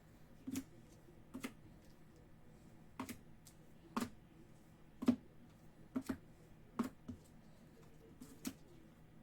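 A series of separate sharp clicks and taps, roughly one a second and a few in quick pairs, over quiet room tone.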